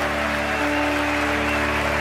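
Slow music of long held chords laid over steady applause from a large crowd.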